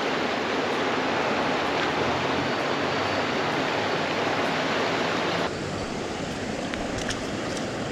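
River water rushing, a steady noise that drops a little in level about five and a half seconds in.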